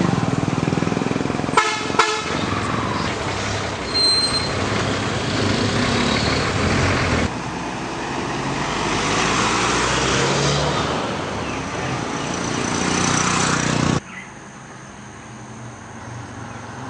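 A loud, steady rush of outdoor noise with a short vehicle horn toot about two seconds in. The noise drops suddenly about seven seconds in and again about fourteen seconds in.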